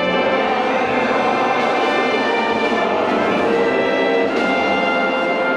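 Orchestral music led by brass, playing steadily and full.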